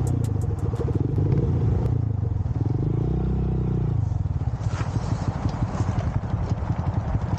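Small motorcycle engine running under way, its pitch rising and falling between about two and four seconds in as the bike slows, then settling into a rapid low putter.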